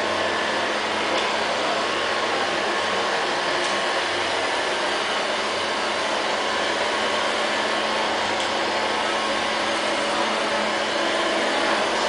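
LL-302 robot vacuum cleaner running across a tiled floor: the steady whir of its suction fan and brushes, with a faint low hum and no change in level.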